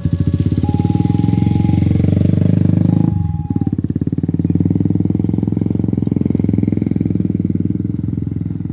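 Level crossing's electronic warning alarm alternating between two tones. It stops about three and a half seconds in as the barriers lift after the train has passed. Under it runs the low, fast-pulsing engine noise of motorcycles crossing the tracks close by.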